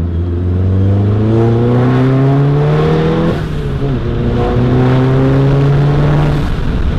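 Volkswagen Mk7 Golf GTI's turbocharged 2.0-litre four-cylinder engine accelerating hard from a standstill. The engine note rises steadily, drops sharply at an upshift about three seconds in, then climbs again through the next gear until a second shift near the end.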